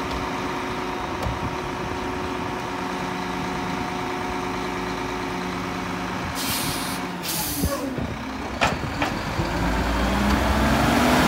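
Mack LEU garbage truck's engine idling steadily, then two short hisses of the air brakes releasing about six to seven seconds in, followed by a few clunks. Near the end the engine picks up and gets louder as the truck starts to pull away.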